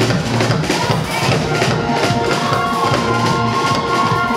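Live band music with a steady drum-kit beat, with held notes coming in about a third of the way through.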